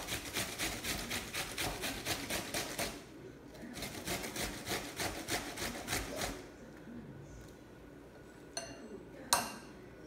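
Potato rubbed down a stainless steel box grater in quick grating strokes, about four a second, with a short pause about three seconds in and stopping about six seconds in. Near the end, a sharp metallic clink.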